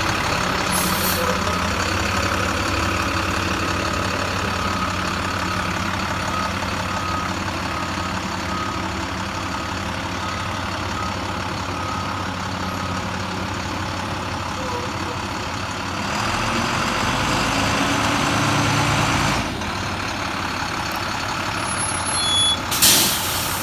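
2008 International IC CE school bus diesel engine idling, with a run of short high beeps, about two a second, in the middle. The engine then pulls harder for a few seconds as the bus moves off. A sharp hiss of air near the end, typical of the air brakes being set.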